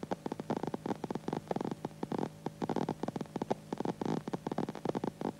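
Kvant-15 laser welding installation doing seam welding: a fast, irregular crackle of sharp clicks, several a second, as the welding pulses fire. It cuts off suddenly near the end.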